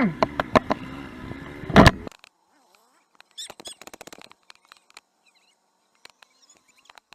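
A vehicle horn ends with a steep drop in pitch, followed by a few sharp clicks and one loud bang a little under two seconds in. After that the sound falls almost silent apart from faint crackles.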